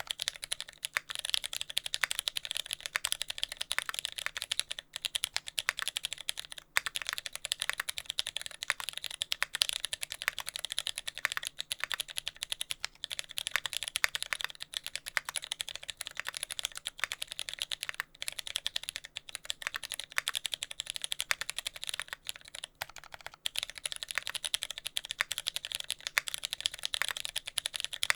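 Fast, continuous typing on a TX65 mechanical keyboard with lubed Cherry MX Brown switches on a brass plate, with no sound dampening, the keystrokes clacking in a steady stream with only brief pauses. A faint scratchy contact noise from the switches is typical of leaving the tactile bumps unlubed.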